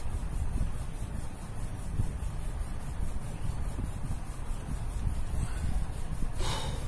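Ballpoint pen scratching on paper as a short heading is written and underlined, over a steady low background rumble, with a brief rustle near the end.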